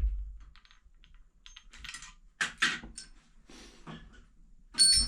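Clicks and light rattles of a door's latch and lock being worked by hand, ending in a sharper metallic clink.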